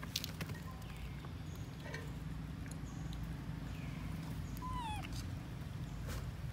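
Baby macaque crying with a few short, high, falling calls, the clearest one near the end. These are the distress cries of an infant left alone by its mother.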